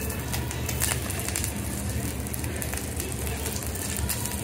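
Food sizzling and spattering on a teppanyaki iron griddle: a steady frying hiss full of fast, irregular crackles, over a steady low hum.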